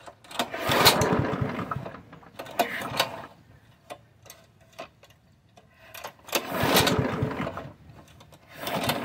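Walk-behind lawnmower's small engine being pull-started: two long cranks on the recoil cord, about a second in and again around six seconds in, each followed by a shorter one, without the engine catching. The carburetor bowl had been drained, and fuel has not yet reached it.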